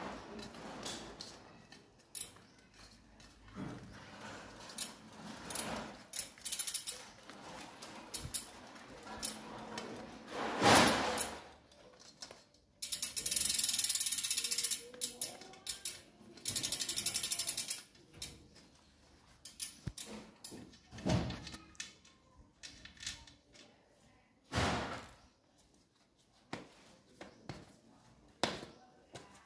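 Road bike's rear freehub ratcheting in fast runs of clicks as the wheel is turned by hand, twice for a couple of seconds each. Around it come scattered clicks and rubbing from the tyre being worked onto the rim, with one thump about eleven seconds in.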